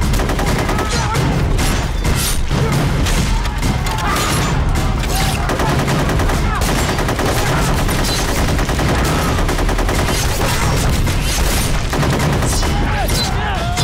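Dense battle gunfire: continuous volleys of rifle and machine-gun fire, with men shouting among the shots.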